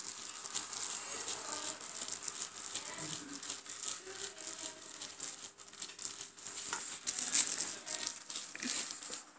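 Plastic wrap crinkling and crackling in irregular bursts as kittens bat and paw at it, loudest about seven seconds in.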